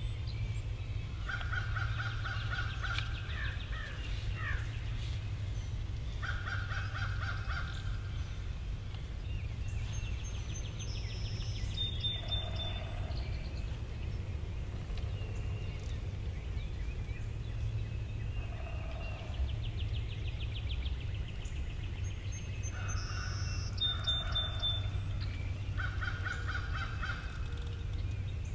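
Eastern wild turkey gobbling several times, each a rapid rattling trill about a second and a half long, mixed with songbird calls over a steady low rumble.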